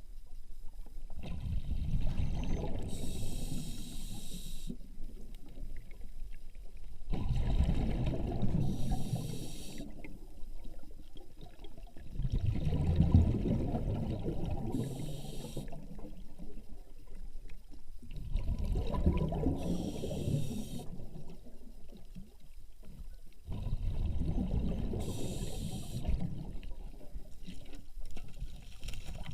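Water gurgling in five separate surges, each lasting two to four seconds and coming about every five to six seconds, with a hiss in the middle of each.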